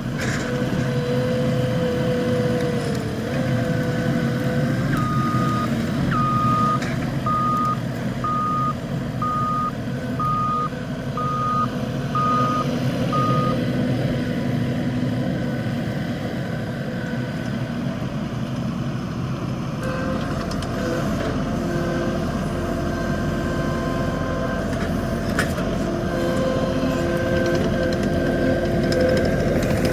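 Skid steer running under load with its backup alarm beeping while it reverses: about eight even beeps, one a second, over the first half, then the machine running on with steady whines.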